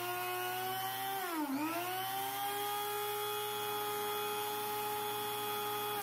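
Handheld rotary tool spinning a small washing machine pump that is being used as a generator: a steady motor whine that dips in pitch and climbs back about a second and a half in as the speed is varied.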